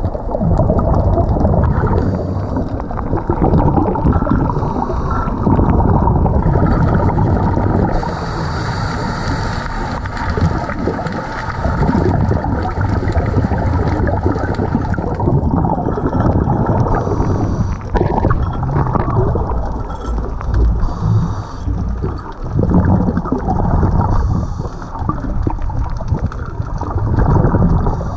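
Underwater sound heard during a scuba dive: a continuous muffled rumble and rush of water, with the gurgle and hiss of scuba breathing and exhaled bubbles coming and going.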